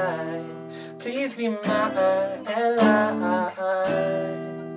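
Acoustic guitar strummed in slow chords, roughly one stroke a second, each ringing on. A man's voice holds long, wavering sung notes over it as the song ends.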